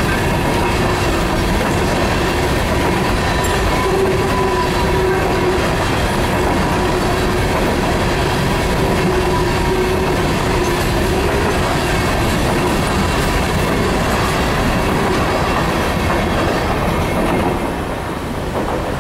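Empty coal hopper cars of a freight train rolling past, wheels clattering over the rail joints, with a steady wheel squeal through the first half. The sound drops off near the end as the last car goes by.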